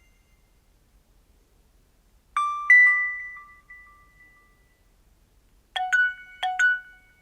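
Nokia C2-01 phone playing short electronic chime tones from its loudspeaker. About two and a half seconds in, a two-note chime rises and rings out. Near the end come two quick pairs of chime notes.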